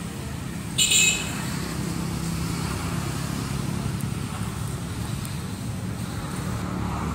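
Steady low hum of a motor vehicle running, with a brief high-pitched squeal about a second in.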